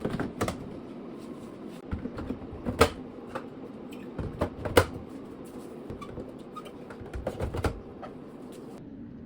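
Household items knocking and clattering as they are handled and set down, with sharp knocks about half a second, three, five and seven and a half seconds in, over a steady low hum.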